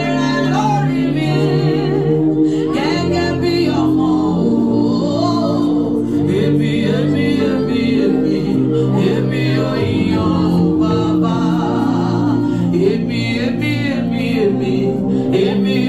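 A woman singing into a microphone, amplified through a PA, over sustained backing chords.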